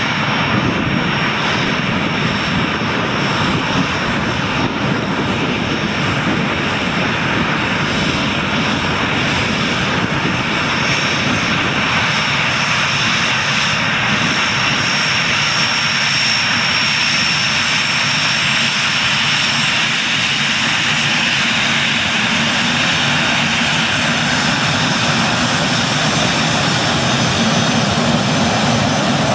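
Boeing 737 Classic's CFM56-3 turbofan engines running steadily at taxi power: a constant jet whine with a high-pitched fan tone over a broad rush.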